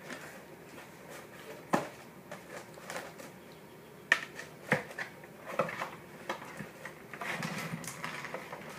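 Parts of a Shooting Chrony chronograph being handled and fitted together during assembly: a few separate sharp clicks and knocks, with some rustling near the end.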